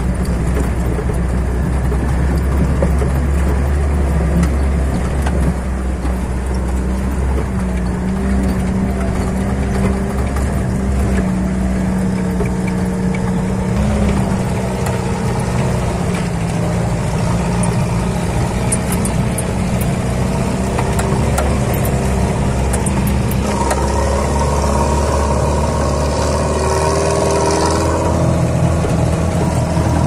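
An old off-road vehicle's engine and cabin, heard from inside while it drives on a rough dirt track: a steady engine drone with rattles from the body. The engine note shifts a few times as the driver works the throttle, and a higher whine comes in for a few seconds near the end.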